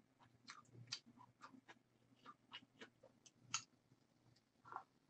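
Faint mouth sounds of someone eating instant noodles close to the microphone: soft chewing and slurping, with a scattering of small wet smacks and clicks, one a little louder past the middle.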